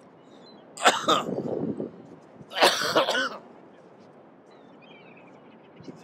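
A person coughing hard twice, two harsh hacking bursts about two seconds apart. Faint high bird calls follow in the second half.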